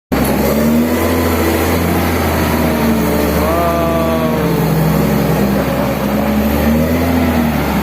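A bulldozer's diesel engine running under load, a deep steady rumble with its pitch drifting up and down as it works.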